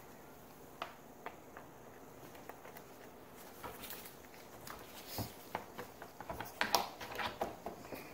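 Scattered light clicks and knocks of a jet-ski handlebar cover and handlebar parts being handled with gloved hands, a couple at first and more frequent from about halfway through.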